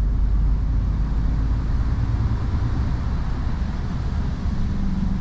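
Inside a lorry cab while driving: the diesel engine's steady low drone with road and tyre noise.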